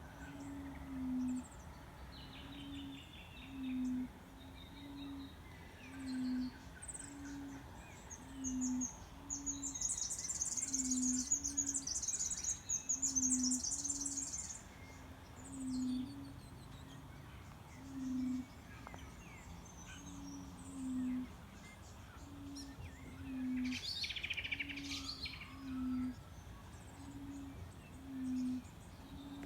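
A low, resonant note of unknown origin, quiet but very resonant, coming from a roadside bank. It repeats about once a second, alternating between two slightly different pitches. Birds chirp loudly over it for a few seconds in the middle, and another bird calls briefly near the end.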